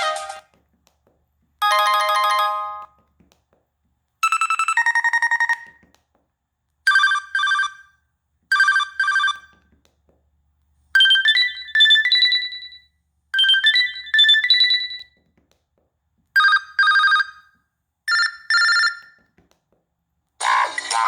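LG enV3 phone playing its preloaded ringtones through its small speaker. Short electronic chime phrases of a few clear notes, each a second or so long, are separated by silent pauses. Near the end a busier musical ringtone starts.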